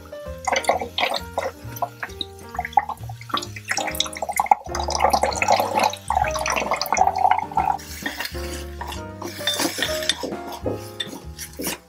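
Background music over a trickle of water from a miniature faucet into a tiny metal sink, with small clinks. Near the end come clinks and a hiss from a tiny wok.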